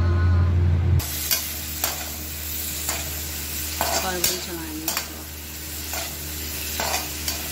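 Ridge gourd pieces sizzling in a kadai while a perforated metal spatula stirs them, scraping the pan about once a second. A loud low hum fills the first second.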